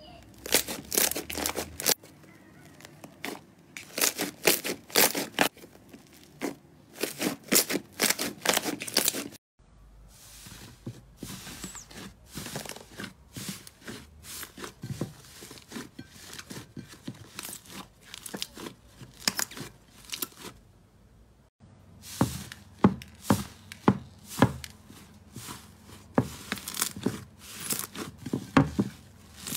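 Hands kneading and pressing thick slime, which gives off dense clusters of sticky crackling pops and squelches. The sound changes abruptly twice, about a third and two thirds of the way in, as one batch of slime gives way to another.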